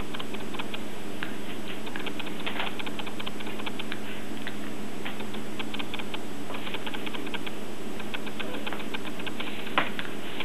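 English Bulldog puppy chewing and gnawing, a rapid irregular patter of small clicks from her mouth and teeth, with a sharper click near the end, over a steady low hum.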